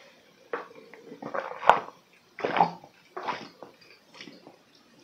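A person chugging red ABC juice (apple, beet and carrot) from a tall glass, gulping it down in big close-up swallows about once a second, with a sharp click partway through.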